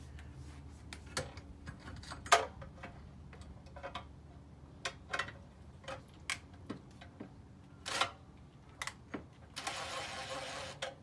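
Scattered clicks and taps of a screw and a cordless driver being handled against a small engine's metal housing as a bracket's bottom screw is started. Near the end the cordless driver runs for about a second, driving the screw in.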